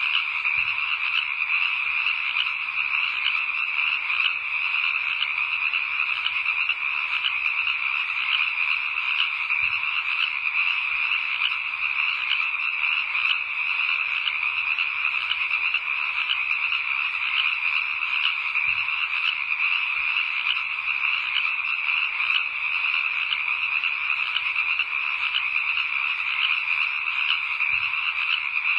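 Dense, steady chorus of frogs croaking, many calls overlapping without a break.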